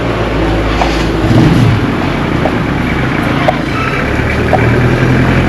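A motor vehicle's engine running close by, its pitch dipping briefly about one and a half seconds in, over steady street noise.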